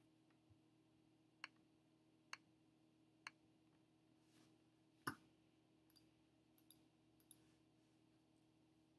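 Faint clicks of a computer mouse over a low steady hum: three single clicks about a second apart, a louder knock about five seconds in, then three quick double clicks.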